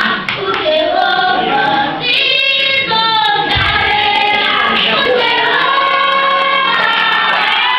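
A children's choir singing together, a steady sustained group song.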